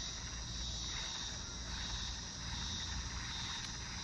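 Steady high-pitched chorus of insects, pulsing slightly in strength, with a low rumble underneath.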